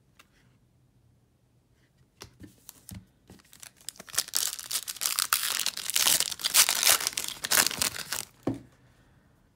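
A foil trading-card pack being torn open by hand. Scattered crinkles start about two seconds in, build into a loud few seconds of crackling, tearing foil, and stop abruptly near the end.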